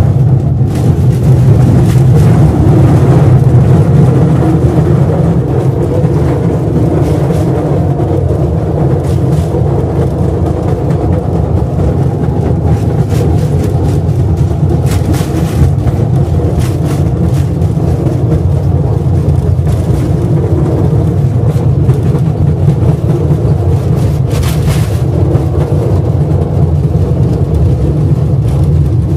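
Mine train running through the tunnel, heard from inside a riding car: a loud, steady rumble and rattle, with a few brief sharper clatters now and then.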